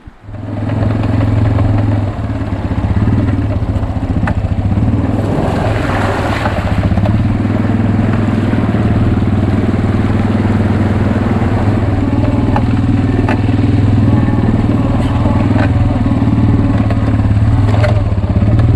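Engine of a small off-road vehicle running steadily at an even pitch as it drives along a rough dirt track. There is a louder rushing surge about six seconds in and a few sharp knocks and clatters over bumps.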